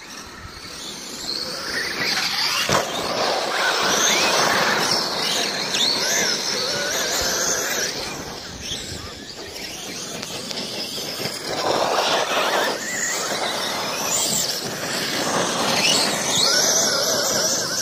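Brushless electric RC off-road trucks running on a dirt track: a high-pitched motor whine that rises and falls as they accelerate and brake, over tyre and gravel noise, louder several times as cars pass close.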